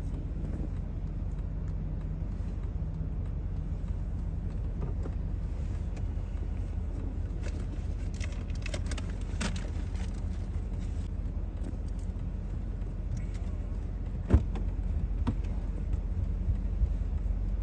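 Car engine running, heard from inside the cabin as a steady low rumble. Scattered light clicks and rattles sound over it, with one sharp knock about fourteen seconds in.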